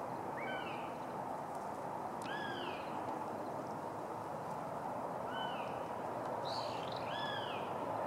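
Female northern goshawk calling: four short calls, each rising then falling in pitch, spaced about two to three seconds apart over steady background noise.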